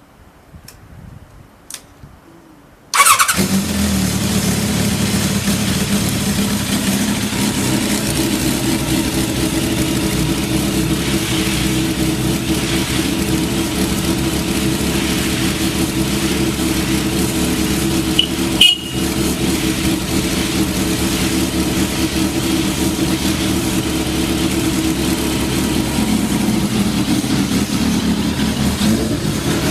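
A few faint clicks, then a Kawasaki GPZ1100's inline-four fires on the first press of the electric starter about three seconds in and settles straight into a steady idle. One short sharp click partway through.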